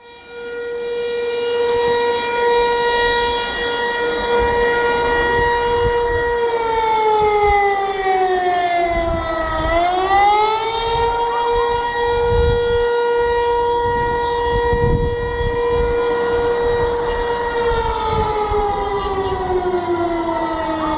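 Air raid siren sounding a steady tone that sags in pitch once about ten seconds in, climbs back and holds, then begins winding down near the end.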